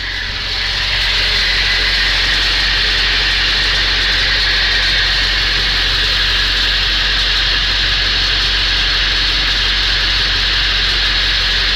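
A 1999.5 Ford F-350's 7.3L Power Stroke V8 turbodiesel running steadily, a low drone under an even hiss. The owner is chasing an intermittent metal rattle from under the truck, which he suspects is the flexplate or starter rather than the engine itself.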